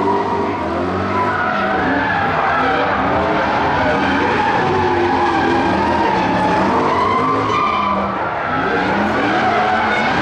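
Two drift cars sliding sideways in tandem: their engines rev up and down continually while the rear tyres squeal and skid under wheelspin.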